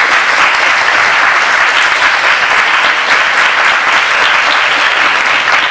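Audience applauding steadily in a large hall, the clapping dying away right at the end.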